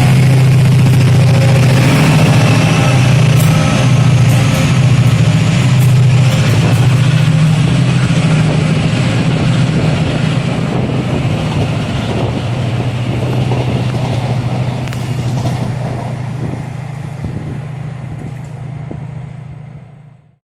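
Train running through the station with a heavy, steady rumble and a faint rising whine early on, slowly fading as it draws away, then cut off abruptly near the end.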